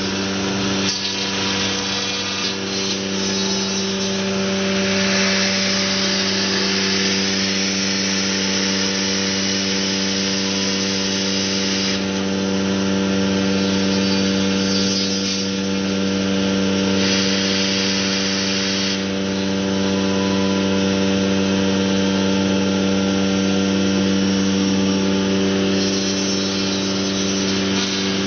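A 5-axis CNC router's electric spindle running with a steady whine while its bit carves a block of white foam. A hissing cutting noise rises and falls as the tool moves through the cut.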